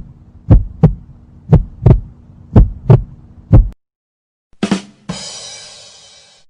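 Heartbeat sound effect: low double thumps (lub-dub), about one pair a second, stopping about four seconds in. A short hit follows near the end, then a noisy, bright sound fading away over about a second and a half.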